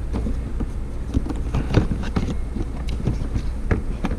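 Plastic fog light housing clicking and knocking against the bumper's fog light opening as it is pushed into place by hand, a few scattered taps over a steady low hum.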